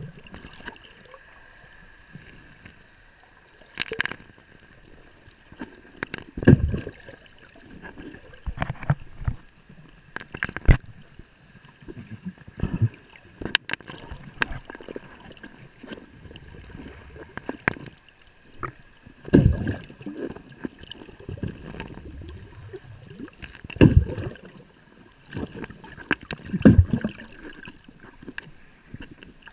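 Water sloshing and gurgling, broken by irregular thumps and knocks, over a faint steady high tone.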